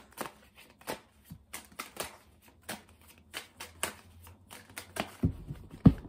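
Tarot cards shuffled by hand: an irregular patter of short card clicks and flicks, with two louder knocks near the end.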